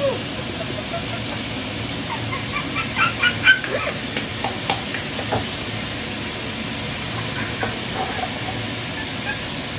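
Steady hiss of food cooking on the stove.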